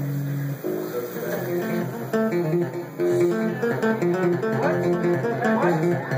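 Amplified electric bass played solo: a held chord cuts off about half a second in, and fast runs of short, separate notes follow, with a few bent notes near the end.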